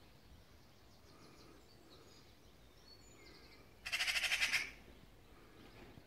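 Faint chirps of small garden birds, broken about four seconds in by one loud, brief, rapidly trembling animal call.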